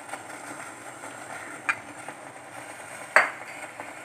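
Water boiling in a steel pot with black tea powder just stirred in, bubbling steadily. Two sharp clinks of a spoon against the pot, about a second and a half apart, the second louder.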